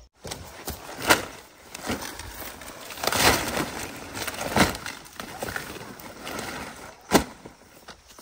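Crisp cabbage leaves and stalks snapping and crunching as they are cut and broken off, with four sharper cracks about a second, three, four and a half and seven seconds in.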